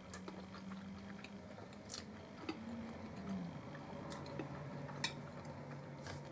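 Quiet sounds of eating at a table: forks clicking against china plates, a few sharp ticks scattered through, over a faint steady low hum that drops slightly in pitch about halfway through.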